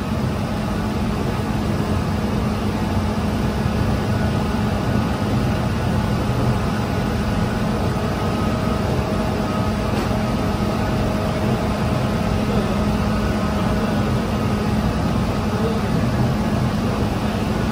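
Large bakery dough mixer running steadily with a low hum as its bowl turns and flour and water are worked into dough.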